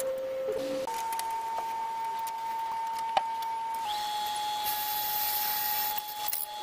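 Wood lathe running with a steady motor whine whose pitch jumps in steps, with scattered small clicks. From about halfway through, a drill bit bores into the end of a spinning padauk blank, adding a hiss of cutting wood over the whine.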